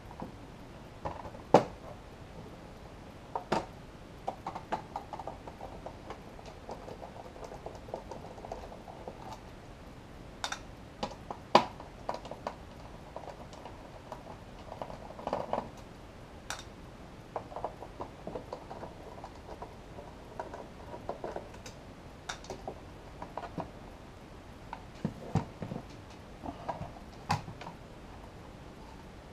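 Hands working the sheet-metal chassis of a Behringer Ultragain MIC2200 rack preamp during disassembly: scattered clicks and knocks of metal and screws, with scraping and rustling between them. The sharpest knocks come about a second and a half in and again about twelve seconds in.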